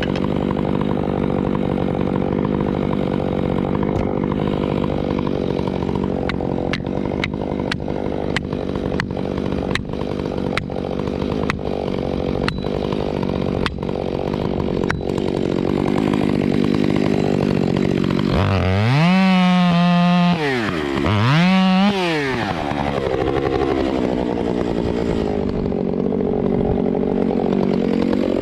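Chainsaw running steadily under load while cutting wood, with a run of sharp ticks through the middle. About two-thirds through, the saw is revved up and let back down twice.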